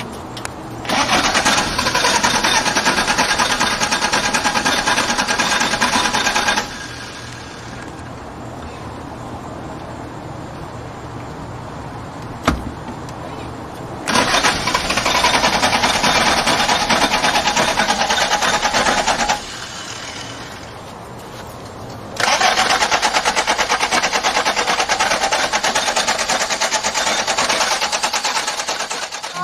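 Honda Civic's starter motor cranking the engine in three long attempts of several seconds each, the engine turning over without catching. A single sharp click comes between the first and second attempts.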